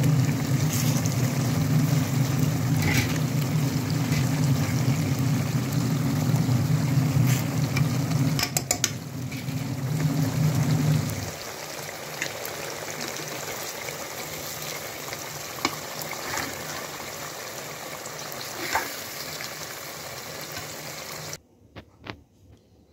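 Fish pieces sizzling in oily masala in an aluminium pot, with a metal slotted spoon scraping and tapping against the pot now and then. A steady low hum runs under it for about the first half, then stops; near the end the sound drops away suddenly.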